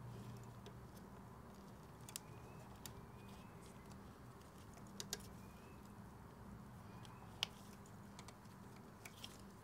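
Near silence with a low steady hum and a few faint, scattered clicks and taps from handling motorcycle fairing plastic, the sharpest click a little past the middle.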